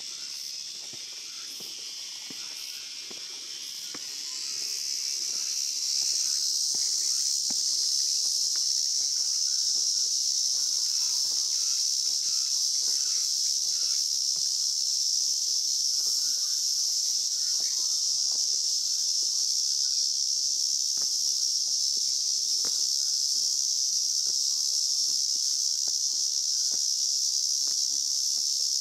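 A dense insect chorus: a shrill, steady, high-pitched buzzing that swells about five seconds in and then holds. Soft footsteps on stone steps tick faintly underneath.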